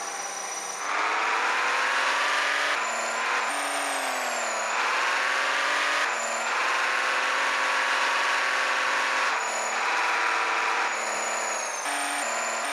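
Small electric motor of a toy vehicle whirring continuously, its pitch sagging and rising every second or two.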